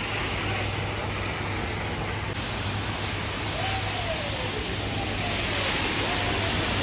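Street traffic on a rain-wet road: a steady hiss of tyres on wet asphalt with a low hum. A few faint falling whines come in during the second half.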